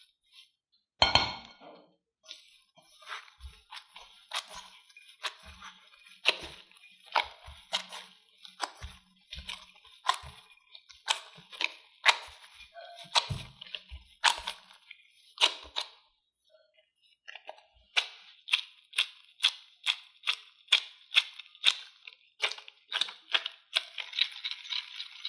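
Mashed potato dough being worked in a glass bowl with a silicone spatula and a gloved hand: sharp clinks and squishes of the dough pressed against the glass. They come about once a second, stop briefly, then return as quicker, even strokes about two a second.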